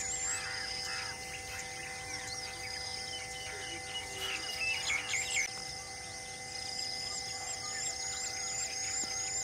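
Forest ambience: several birds chirping and calling, over a steady drone of insects. In the last few seconds one bird repeats a short rising whistle about twice a second.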